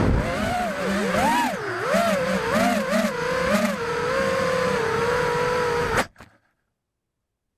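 Whine of a ZMR-X210 racing quadcopter's Emax RS2205 2300Kv brushless motors and HQ 5040 tri-blade props, heard from the onboard camera. The pitch swings up and down with the throttle, then settles steady before cutting off suddenly about six seconds in.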